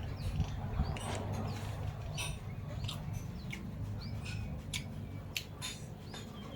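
Chewing and lip-smacking while eating: scattered short, sharp clicks and smacks, with a few brief bird chirps and a low steady hum underneath.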